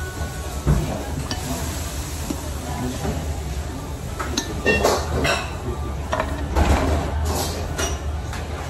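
A ramen spoon and chopsticks clinking against a bowl while eating: a handful of separate light clinks, over a steady low hum.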